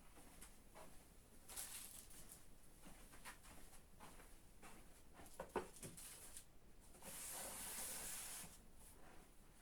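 Faint handling sounds of someone setting out objects: light clicks and rustling, a sharper knock about five and a half seconds in, and a longer hiss-like rustle of about a second and a half near the end.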